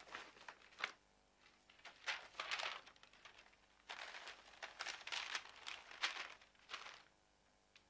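Paper rustling and crinkling in several short spells as wrapped food and a sheet of paper are handled and packed into a wicker basket.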